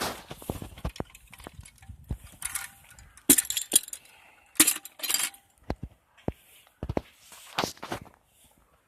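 Irregular metal clicks and clinks from a hand lever winch being handled, its steel parts knocking together, with a few short rattles.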